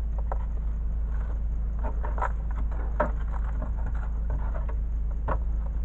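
Irregular small crackles and clicks as dried termite mud leads on brickwork are picked and broken open by a gloved hand, over a steady low hum.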